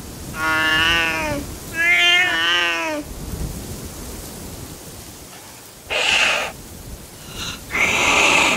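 Angry cat giving two long, wavering yowls, then hissing twice in short, sharp bursts near the end.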